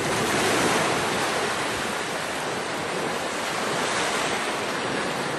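Steady, even rush of sea surf and wind, with no distinct events.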